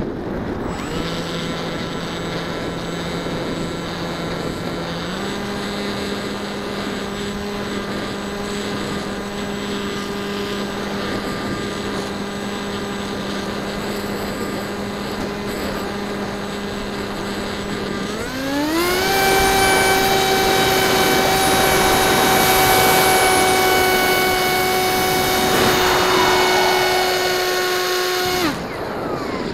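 Bixler 1.1 RC plane's electric motor and propeller, a steady whine over wind rush, heard from the onboard camera. The pitch steps up slightly about five seconds in. About two-thirds of the way through the motor speeds up to a louder, higher whine, then cuts off suddenly near the end.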